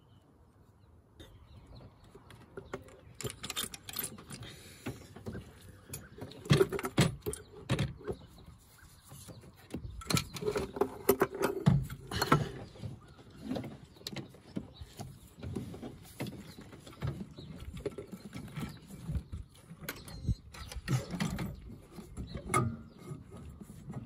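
Irregular clinks, knocks and scrapes of metal engine parts handled by gloved hands: a new exhaust manifold gasket being fitted over the studs and the turbocharger being worked into place, with a few sharper knocks along the way.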